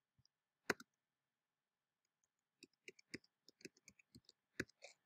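Faint computer keyboard keystrokes: one sharper click under a second in, then a quick run of about ten key taps as a search is typed.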